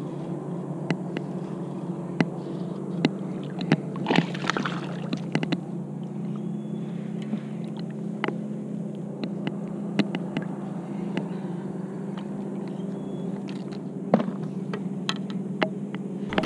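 Scattered knocks and clicks of paddle and fishing rod being handled against a plastic fishing kayak, over a steady low hum, with a brief rushing, splash-like noise about four seconds in.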